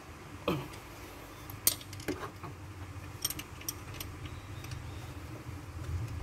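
Hand tools clinking against metal parts: a handful of sharp separate clinks and taps, over a low steady hum.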